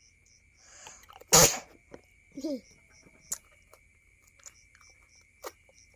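A person sneezes once, sharply, about a second and a half in, just after a short intake of breath. A few small clicks and knocks follow.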